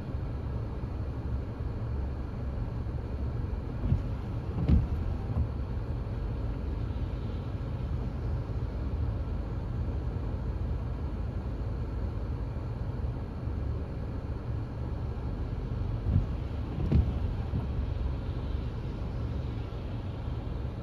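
Steady low rumble of a car driving slowly, heard from inside the cabin. Two pairs of brief thumps come about four seconds in and again about sixteen seconds in.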